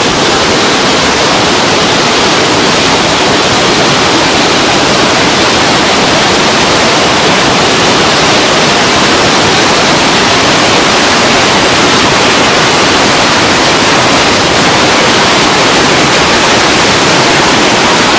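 Floodwater pouring over a dam spillway: a loud, steady rush of water with no let-up.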